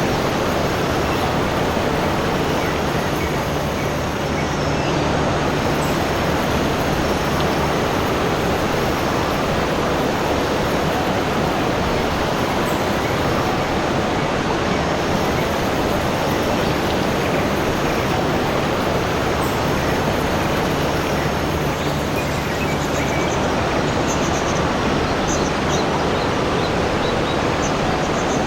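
Steady rushing water, like a waterfall or fast stream, even and unbroken, with a few faint high chirps near the end.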